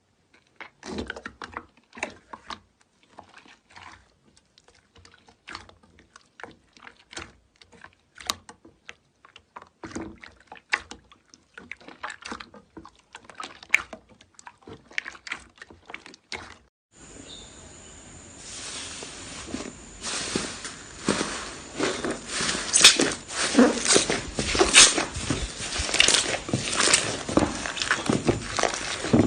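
Slime being squeezed and poked by hand, giving sparse sticky clicks and small pops. About two-thirds of the way in, this changes abruptly to a louder, denser crackling and crunching over a steady hiss.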